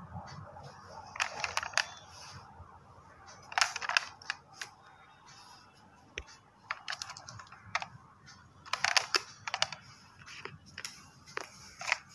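Light clicks and rattles of a plastic toy car being handled and turned around, in several short clusters.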